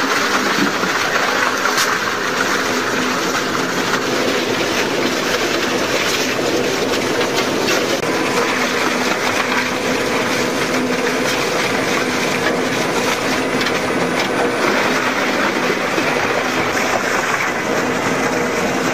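Industrial crushing machine running under load, a steady dense mechanical clatter with a faint hum underneath.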